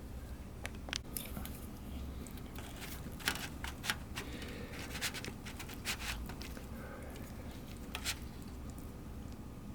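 Scattered light clicks, scrapes and rustles of plastic food packaging and containers being handled, over a low steady hum.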